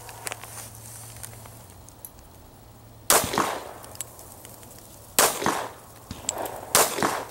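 Three handgun shots fired one-handed with the support hand, about three, five and almost seven seconds in, each trailing off briefly.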